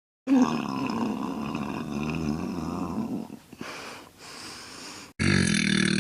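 A girl's long, low burp lasting about three seconds, then going quieter for a couple of seconds. Another burp starts abruptly near the end.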